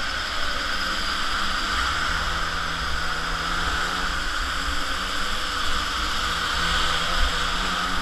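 Onboard sound of a Polini two-stroke mini moto engine running steadily under throttle, with a broad rushing hiss over it.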